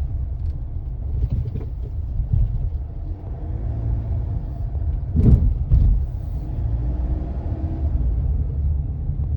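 Low road rumble inside a Mahindra XUV700's cabin while driving, with two sharp knocks about five and six seconds in. The knocks fit the plastic-sounding passenger-side dashboard rattle that the owner hears whenever the car drops into a pothole.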